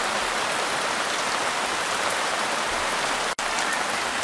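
A steady, even hiss that drops out for an instant about three seconds in.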